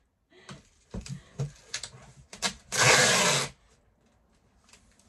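Brown packing tape ripped off the roll with a loud screech lasting about a second, about two and a half seconds in. Before it come light taps and rustles of hands on the cardboard box.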